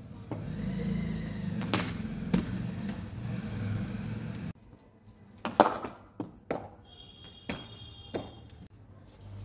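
A run of sharp wooden knocks from cricket batting practice with a leather ball, the loudest about halfway through, over a low hum that cuts off abruptly partway in.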